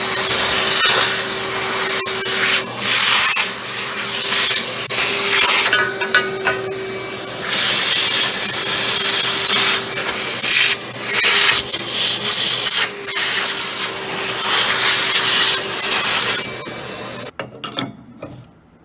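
Small vacuum running, its nozzle worked over the coffee grinder's outer burr and burr housing to suck out loose grounds. A steady motor hum sits under a suction hiss that rises and falls as the nozzle meets and leaves the metal. It shuts off about seventeen seconds in, followed by a few handling clicks.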